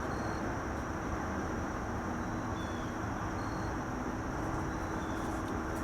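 Steady outdoor background noise, a low even rumble, with short faint high chirps every second or so and a faint steady high whine.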